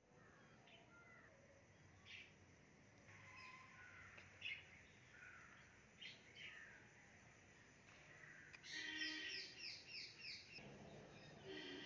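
Birds chirping and calling faintly, with a quick run of repeated notes about nine seconds in.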